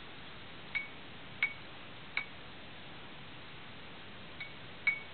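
A glass light bulb clinking against a ceiling light fixture: short, sharp clinks with a brief ring, three about a second in and two more near the end.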